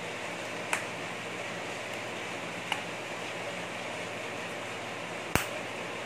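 Three short sharp clicks from a small plastic vape device and its parts being handled and fitted together, the loudest about five seconds in, over a steady background hiss.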